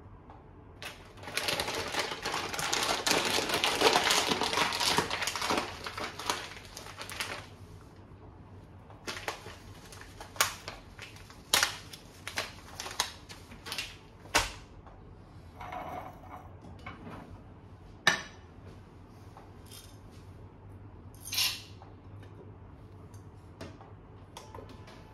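Coffee beans poured from a bag into a small stainless steel dosing cup on a scale: a dense rattling patter for about six seconds. It is followed by scattered clicks, taps and brief rustles as the cup, bag and portafilter are handled.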